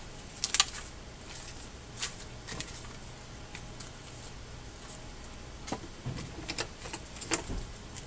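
Small plastic parts bags being handled and rummaged through, with a handful of sharp clicks and rattles of small reel parts spread through.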